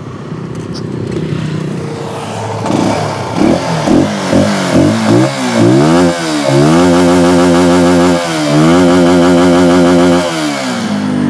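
CFMoto 250NK's single-cylinder engine revved at a standstill: a run of quick throttle blips, then two long high-rev holds with a short dip between them, dropping back to idle near the end.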